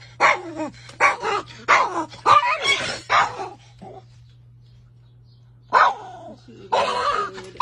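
A small dog barking in a quick run of short yaps for about three seconds, then, after a pause of a couple of seconds, barking again near the end.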